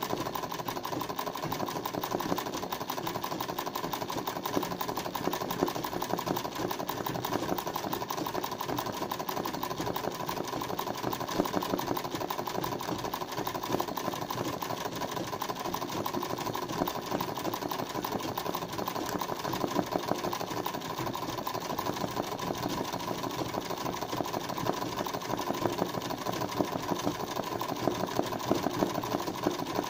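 Black domestic sewing machine running steadily at a fast, even stitching rate, stitching embroidery.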